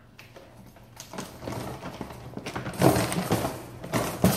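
Wire rabbit cage rattling and clanking as its top is closed, with irregular knocks and rustling of paper bedding; the loudest knocks come about three seconds in and near the end.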